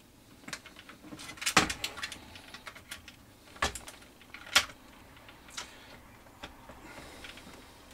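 Irregular small clicks and knocks of a metal SMA antenna connector and its lead being worked into a drilled hole in a plastic radio-transmitter case, with a few sharper knocks among them. The connector is not going fully home, a sign the hole may need to be a fraction bigger.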